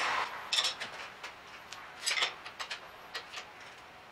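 Scattered sharp metallic clicks and clinks, some in quick ticking runs, from a socket and long bar being fitted onto and worked on a tow-bar bolt.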